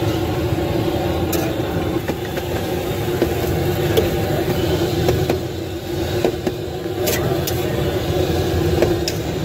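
A metal spatula clicking and scraping on a steel griddle as buns are pushed around, over a steady low rumble with a constant hum.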